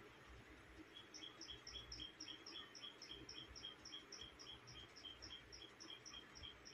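Faint, evenly repeated high chirping from a small bird, about three or four chirps a second, starting about a second in over quiet room tone.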